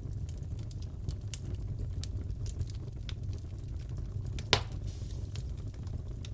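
Wood fire crackling in a fireplace: many small sharp crackles over a low steady rumble of the flames, with one loud pop about four and a half seconds in.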